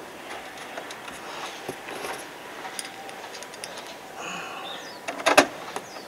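Screwdriver turning the screws that hold a MaxxFan roof-vent hood, with small clicks and scrapes of metal on plastic. There is one loud knock near the end.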